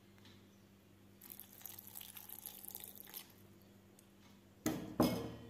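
A little water poured into a steel mixer jar of cooked rice, a thin uneven splashing for about two seconds, then two sharp knocks a moment apart near the end.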